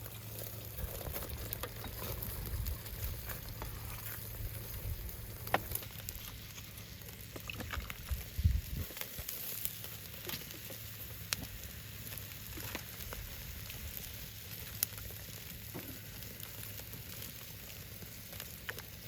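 Meat sizzling on a grill: a steady frying hiss with scattered crackles and pops, its fat rendering out.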